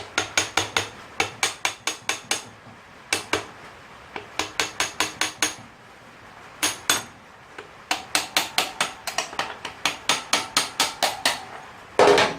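Hammer tapping the rear wheel spindle out through a KTM 640 LC4's wheel: runs of quick metallic strikes, about four or five a second, with short pauses between the runs, and a louder metallic clatter near the end.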